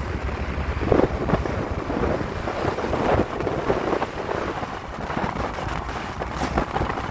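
Wind buffeting the microphone over a low rumble of heavy vehicles.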